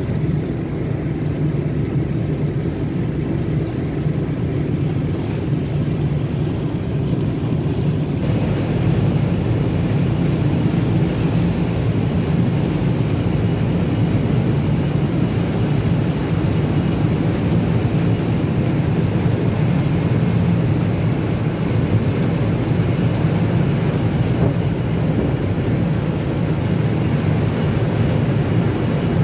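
Steady low drone of a boat's engine, mixed with rushing wind and water noise; it gets a little louder about eight seconds in.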